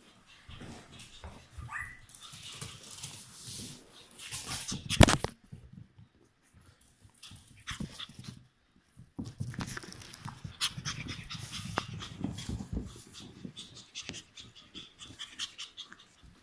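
Chihuahua puppies at play: small-dog breathing and scuffling with light clicks of paws on the floor. A single sharp knock about five seconds in is the loudest sound.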